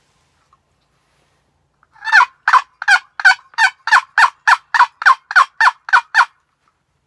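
Hunter's turkey call yelping like a hen to bring in gobblers: a run of about thirteen loud yelps, about three a second, each dropping in pitch, starting about two seconds in.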